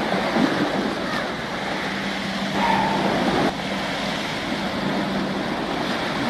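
Wind buffeting the microphone over choppy water, with a steady low hum in the background. About two and a half seconds in, a short high call rises above it for just under a second.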